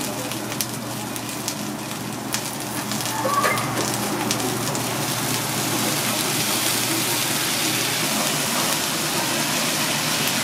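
Noodles, cabbage and bean sprouts sizzling on a hot teppanyaki steel griddle, a steady crackling hiss with a few sharp clicks through it.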